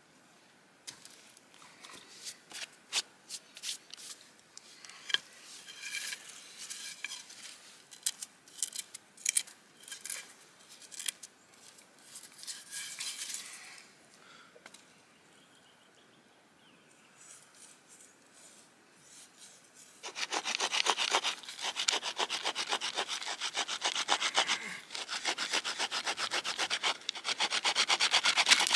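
Steel knife blade scraping and carving a wooden pump-drill crossbar in quick, repeated strokes, loud and steady through the last third. Before that, scattered clicks and knocks of wooden parts being handled, then a few seconds' pause.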